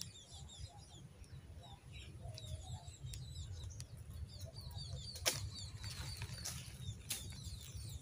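Low rumble of wind buffeting the microphone, with faint high chirps of small birds repeating throughout, and a sharp click about five seconds in, with a fainter one a couple of seconds later.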